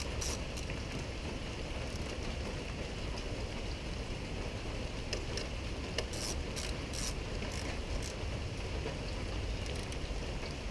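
Small hand ratchet clicking in short runs, a cluster right at the start and another about six to seven seconds in, over a steady background hiss.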